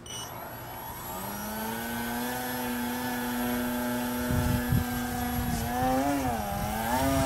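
Electric motor and propeller of a Yak 55 EPP foam RC airplane whining in flight, growing steadily louder as it comes in. The pitch holds steady, then wavers up and down in the last couple of seconds.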